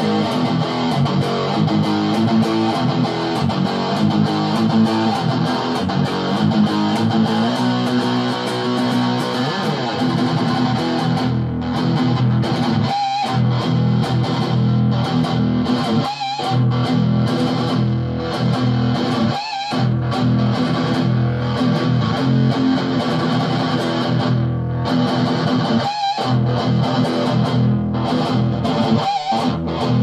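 Electric guitar played through a Metal End distortion pedal with the gain turned all the way up: heavily distorted rock riffs and power chords. In the second half the playing stops sharply for short breaks several times.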